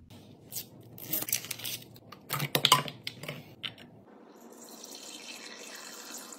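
Sharp clicks and knocks of containers being handled for about four seconds, loudest a little under three seconds in. Then mouthwash is poured from a plastic bottle through a plastic funnel into a glass bottle: a steady trickle and splash of filling liquid.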